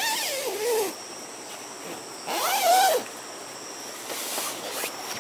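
An animal calling twice outdoors: two drawn-out calls, each under a second, the first falling in pitch and the second rising then falling, over a steady faint high-pitched insect drone.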